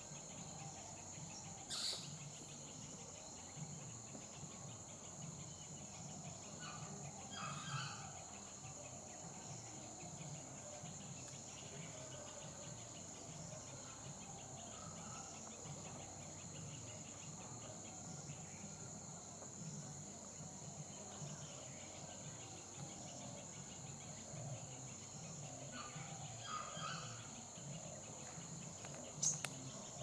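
Steady, high-pitched insect chorus buzzing without a break. A few faint, short bird calls sound over it now and then.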